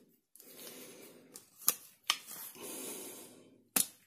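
Rubber O-rings being worked onto a copper pipe with a small screwdriver: stretches of rubbing and scraping, with three sharp clicks, two close together in the middle and one near the end.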